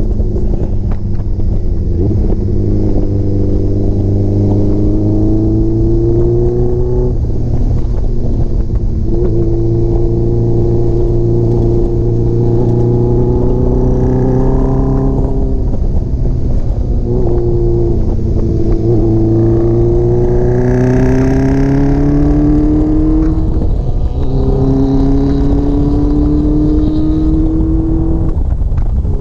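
Honda CBX 750's inline-four engine pulling under load, its pitch climbing steadily through each gear and dropping back at each of several upshifts, over a steady rush of wind and road noise.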